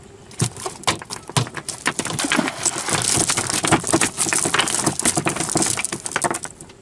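Freshly caught fish flapping inside a cast net on a bamboo-slatted boat deck: rapid, irregular slapping and tapping. It starts about half a second in and stops just before the end.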